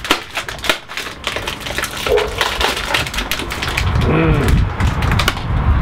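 Plastic food packaging crinkling and crackling as gloved hands pull a packet open, in quick crackles through the first half. A low rumble grows in the second half.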